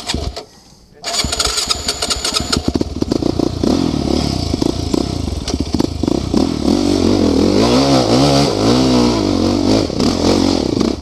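Quad (ATV) engine revving hard under load as it climbs a steep dirt slope on a tow strap. The sound drops out briefly about half a second in and picks up again about a second in. Near the end the revs swing up and down several times.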